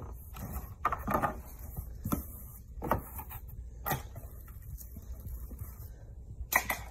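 Cardboard box being opened and handled: flaps and packing rustling and scraping, with a few short knocks, the sharpest pair near the end.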